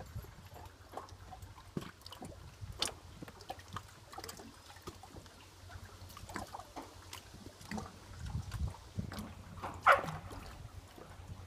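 Small waves lapping and slapping against an aluminum boat hull, making irregular little splashes and knocks, with one louder slap or knock about ten seconds in.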